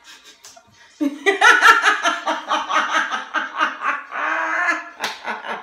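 Two women laughing hard: after a quiet second, a loud run of rapid laughter starts, with a drawn-out high note near the end.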